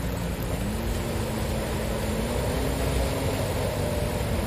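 Cars driving slowly through deep floodwater: a steady rush and splash of water thrown up by the tyres, with one engine note rising gradually in the first couple of seconds.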